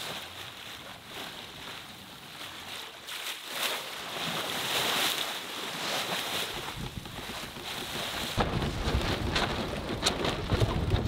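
Sailboat hull moving through the water under sail, its bow wave rushing and splashing along the side. From about eight seconds in, wind buffets the microphone.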